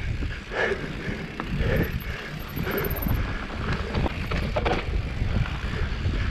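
Mountain bike descending a dusty dirt trail: wind buffeting the microphone over the rumble of knobby tyres on dirt, with scattered clicks and rattles from the bike.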